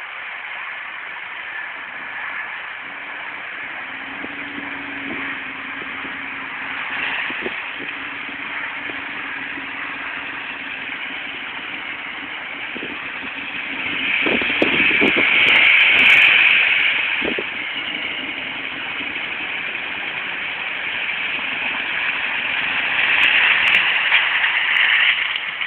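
Hummer H2's V8 engine running steadily as the truck wades through pond water and then drives through mud. It gets louder about halfway through, with a few short knocks, and again near the end as the truck comes past close by.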